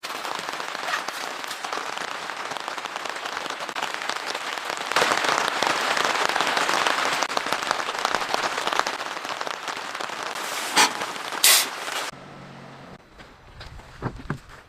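Heavy rain falling, a dense crackling patter heaviest in the middle, with two sharp clicks near the end. About three-quarters of the way in it cuts off suddenly to a much quieter stretch with a few soft thumps.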